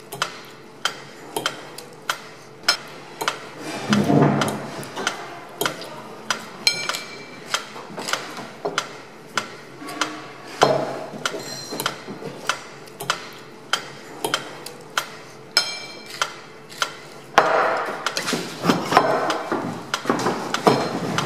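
Mechanical pyramid metronome ticking steadily, a little under two ticks a second, with clinks of glass and cutlery and other short noises between the ticks. Louder, busier noise joins the ticking near the end.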